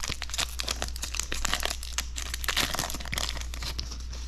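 Foil wrapper of a Magic: The Gathering booster pack crinkling as it is torn open and pulled off the cards, with dense crackling that thins out near the end.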